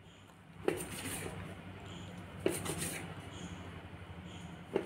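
Kitchen knife cutting folded dough into pieces, the blade striking the cutting surface in three sharp knocks about two seconds apart.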